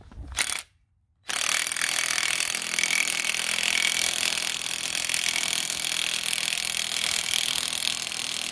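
Cordless impact wrench hammering steadily on the pinion nut of a Nissan 300ZX rear differential, tightening it to set the pinion bearing preload. It starts about a second in and runs without a break.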